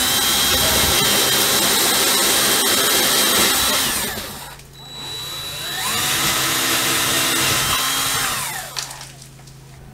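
Cordless drill boring holes into the ceiling for wall anchors, in two runs. Each run winds up to a steady whine and winds down again. The first stops about four seconds in, and the second starts about a second later and winds down near the end.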